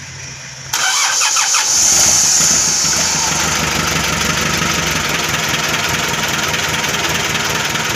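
Mitsubishi Colt Diesel truck's diesel engine being started on its starter motor, which cuts in suddenly under a second in. The engine turns over and fires, settling into steady running after about three seconds. This is its first start on a freshly fitted engine block, with the fuel system just primed by hand.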